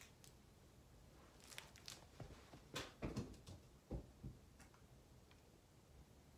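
Faint rustles and soft taps, with a couple of low thumps in the middle, as a Savannah kitten jumps down from a bed and scampers off.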